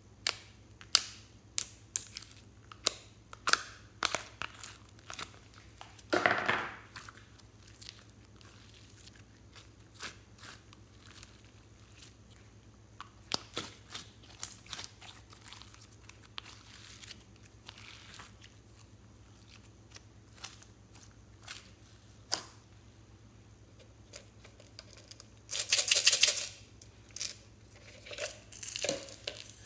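Slime play with plastic containers: a string of sharp plastic clicks and taps, with sticky slime peeling and tearing away in longer crackly stretches about six seconds in and again near the end.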